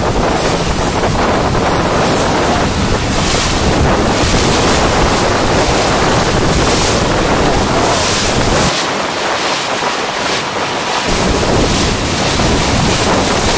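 Wind buffeting the microphone over a steady rush of choppy open-ocean water; the low buffeting drops away for about two seconds near the middle.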